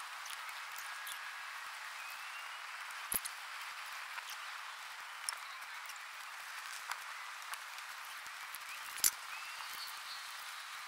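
Wood bonfire crackling: a steady hiss with scattered sharp pops, the two loudest about three seconds in and about nine seconds in.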